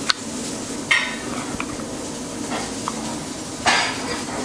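A metal spoon cracking the caramelized sugar crust of a crème brûlée in a ceramic ramekin: two sharp clicks about a second apart, then a louder scraping crunch near the end as the spoon digs out a spoonful.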